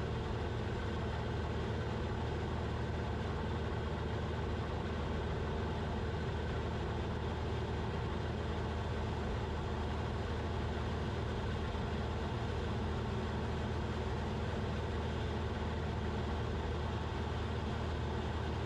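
Cessna 172RG's Lycoming four-cylinder engine and propeller droning steadily in the cabin, at constant power through a steep turn.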